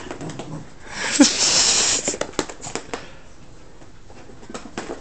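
A cocker spaniel puppy and a larger dog playing: a loud breathy huff of about a second, with a short pitched yelp-like note in it, about a second in, then scattered light clicks and taps.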